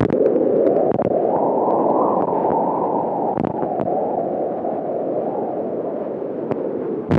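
Placental blood flow heard through a BabyBeat fetal Doppler: a steady rushing whoosh, often said to sound like the wind in the trees, with a few faint clicks.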